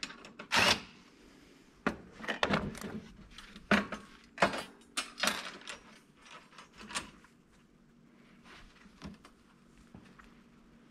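Irregular knocks and clatter of metal parts and a cordless impact driver being handled and set down on a steel worktable, with the long aluminium rail shifted about. The loudest knocks come about half a second in and near four seconds.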